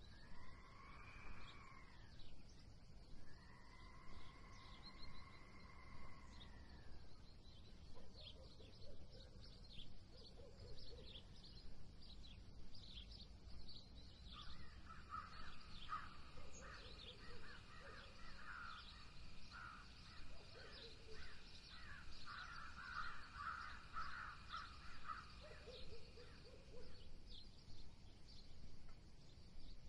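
Faint outdoor woodland ambience with bird calls. Two long drawn-out calls rise and fall in the first seven seconds, short low calls are scattered through the rest, and a stretch of busy chattering comes in the second half. Soft thuds recur about once a second throughout.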